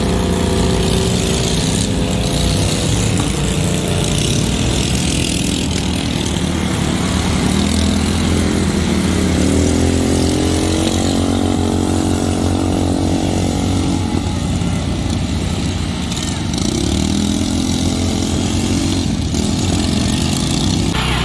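Racing lawn tractor engines running hard, their pitch rising and falling as the machines speed up and slow down.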